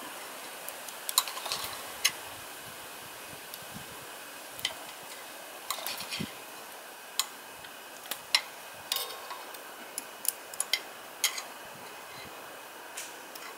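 Cooking utensils clicking and scraping against a frying pan as food is turned, in irregular sharp taps over a faint steady hiss.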